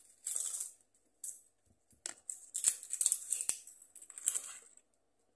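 Metal spoon scraping and tapping while dry seasoning is sprinkled over a raw chicken: short hissing rustles broken by a few sharp clicks near the middle.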